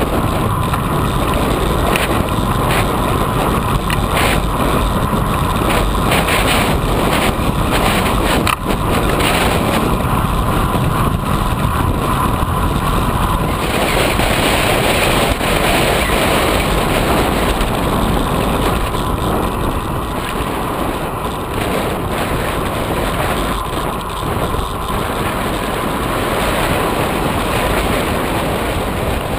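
Wind rushing over the microphone of a bike-mounted camera, mixed with the hum of a road bike's tyres on asphalt. It holds steady, with a few small knocks, and grows louder for a few seconds about halfway through.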